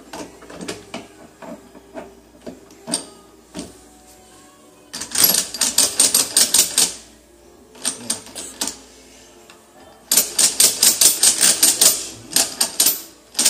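Rapid metallic clicking in bursts of a second or two, a clatter of many quick ticks, from handwork on a Honda Titan 125 gearbox's shafts and gears as they are seated in the engine case. Lighter scattered clicks come first.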